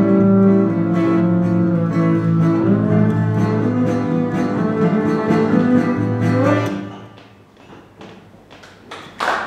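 Acoustic guitar and bowed double bass playing the last notes of a song, the bass holding long low notes. The music dies away about seven seconds in, and applause breaks out just at the end.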